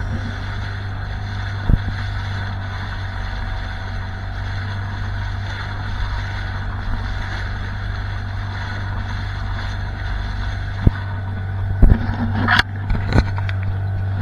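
Small motorboat's engine running steadily while under way over choppy water, with a constant drone and the rush of water. A few sharp knocks and clatters come near the end.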